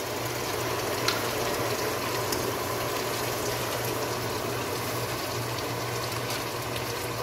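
Chopped tomatoes bubbling and sizzling in hot oil over fried onions, a steady frying sound with a low hum underneath.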